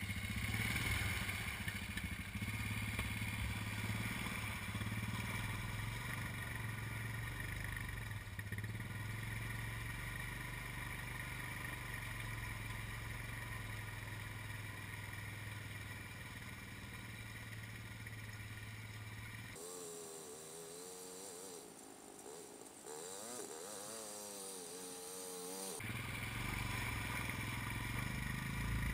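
Honda ATV engine running as the quad drives through a mud hole. Its sound wavers and dips for a few seconds after the middle, then grows louder near the end as the machine comes close.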